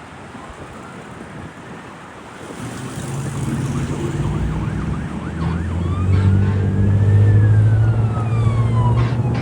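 Fire engine approaching with its siren wailing: a slow rise in pitch, then a fall near the end, with faster sweeps mixed in. The truck's engine drone builds under it, and the whole sound grows louder from about three seconds in.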